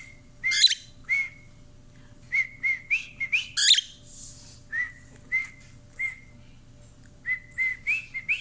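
Cockatiel whistling a tune in short clear notes, grouped into phrases of three to five. Many notes rise at the end, and there is one sharper, louder chirp near the middle.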